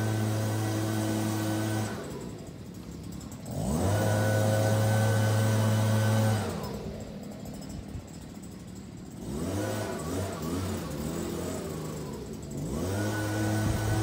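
Small petrol engine of lawn equipment running at a steady high speed. It drops away about two seconds in and again around six and a half seconds, runs unevenly for a while, and each time revs back up with a rising pitch.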